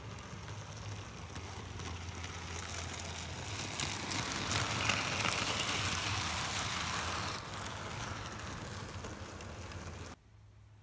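OO gauge model train running on garden track: a steady rolling hiss of wheels on rail and a low motor hum, growing louder as the coaches pass close, then easing off. It cuts off suddenly near the end.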